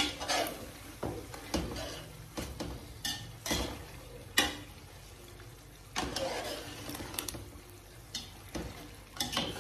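Metal ladle stirring chicken masala in a large aluminium cooking pot: irregular scrapes and knocks of metal against the pot, over the sizzle of the masala frying.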